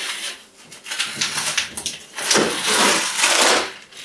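Packing material rustling and scraping as plastic packing pieces are pulled off and out of a resin printer's shipping box, loudest for a stretch past the middle.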